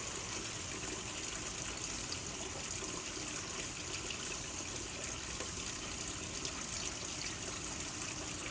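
Water running steadily down a small homemade tiered cement backyard waterfall.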